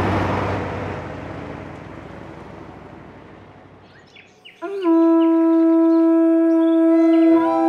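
A bus passes on a dirt road, its noise fading away. About four and a half seconds in, a conch shell trumpet is blown: one loud, long, steady note whose tone shifts slightly near the end.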